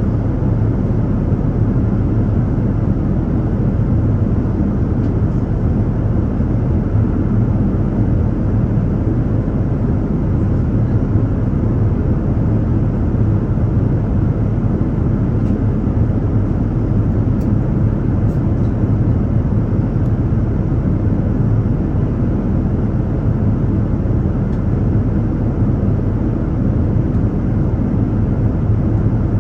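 Steady drone of a passenger jet's cabin noise in cruise: engine and airflow rumble, even and unchanging, heaviest in the low end.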